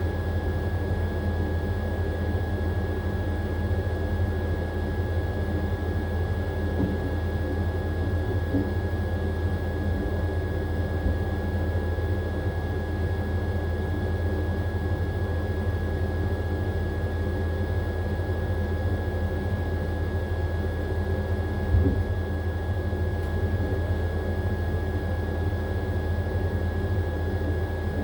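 AQUA AQW-DX12M front-loading drum washing machine running steadily in its spin phase, a constant low hum with a thin steady whine above it. There is one brief knock about three-quarters of the way through.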